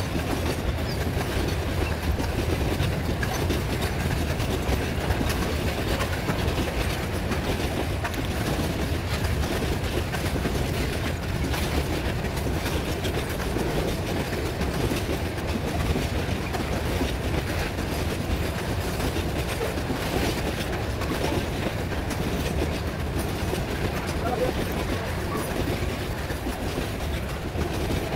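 Loaded grain hopper wagons of a freight train rolling past on metre-gauge track: a steady, unbroken rumble of wheels on rail, with many small clicks from the wheels over the rail joints.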